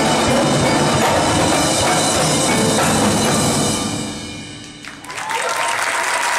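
Indoor drumline and front ensemble (marching snares, tenor drums, bass drums, marimbas and vibraphones) playing a loud final passage that ends about four seconds in, its ring fading away. Audience applause starts about five seconds in.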